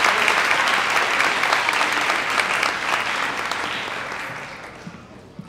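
Audience clapping. The applause dies away over the last couple of seconds.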